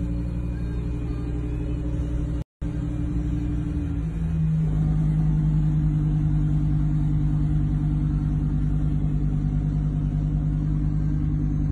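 Lamborghini Huracán EVO's V10 engine idling steadily in park. The sound cuts out for a moment about two and a half seconds in, and its tone shifts and steadies a little deeper about four and a half seconds in.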